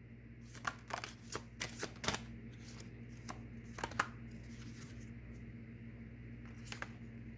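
Tarot cards being handled: a quick run of flicks and snaps as the deck is shuffled and cards are drawn, then one more snap near the end, over a steady low hum.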